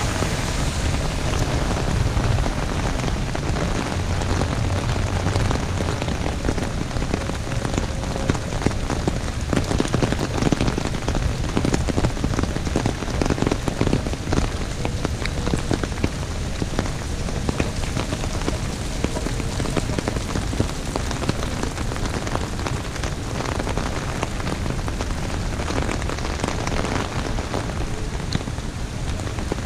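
Heavy rain falling on an umbrella: a steady, dense patter of many drops.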